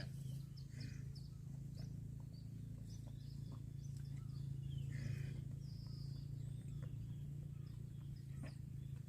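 Small birds chirping in many short, scattered calls over a steady low hum.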